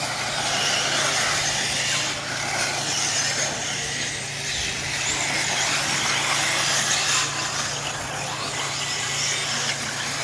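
Brushless electric 1/8-scale RC off-road buggies racing around the track, a steady high-pitched whir and hiss from their motors and tyres.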